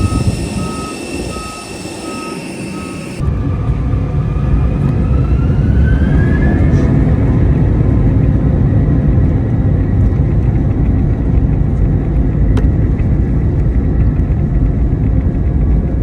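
Regular beeping, about two to three beeps a second, for the first few seconds, then a cut to a loud, steady low rumble of jet airliner engines, with a whine that rises in pitch and then levels off as the engines spool up.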